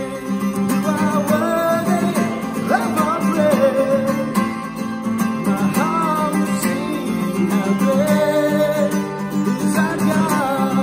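A worship song: acoustic guitar played under a sung melody line that slides between held notes.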